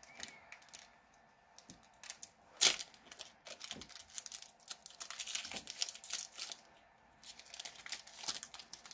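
Foil wrapper of a Pokémon card booster pack being torn open and crinkled in the hands, a string of short crackling rustles, the sharpest about two and a half seconds in.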